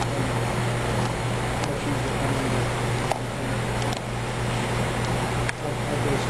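A steady low hum over a constant hiss, with a few faint clicks.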